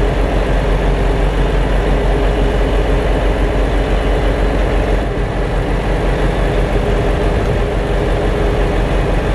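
Truck's diesel engine running steadily with its hydraulic pump engaged, powering a truck-mounted loader crane as it lowers and swings a load. A steady low drone with a steady higher tone above it.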